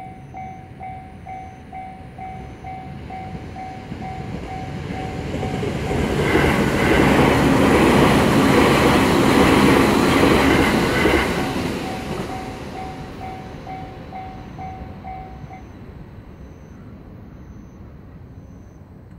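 Level crossing warning bell dinging rapidly while a JR Sōbu Main Line train passes over the crossing; the train's noise swells to its loudest about eight to ten seconds in and then fades. The bell stops about fifteen seconds in as the crossing clears.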